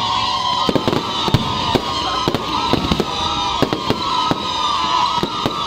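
Aerial fireworks display: shells and comets going off in a rapid, irregular string of sharp bangs and crackles.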